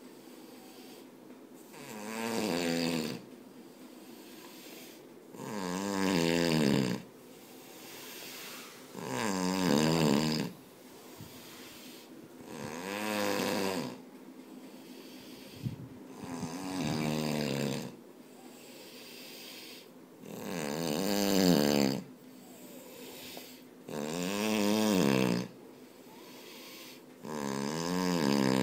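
A person snoring loudly in sleep: a long, wavering, pitched snore about every three and a half seconds, eight in all, with quieter breathing between.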